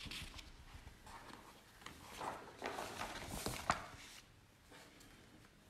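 Sheets of paper rustling and sliding as a written page is moved aside for a blank one, with a sharp tap about two-thirds of the way through.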